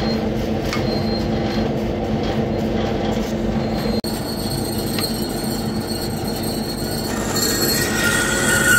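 Metal-cutting contour band saw running, its motor and moving blade giving a steady hum. Near the end a high steady squeal joins as the aluminium plate is pushed into the blade.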